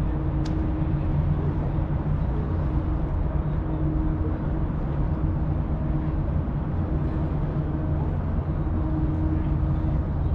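A steady low engine hum with a constant drone, over continuous background noise. A single short, high tick sounds about half a second in.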